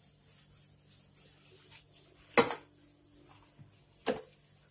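Damp cloth being wiped over a stone kitchen countertop, a faint rubbing, broken by two short sharp knocks: the louder about halfway through, the other about a second and a half later.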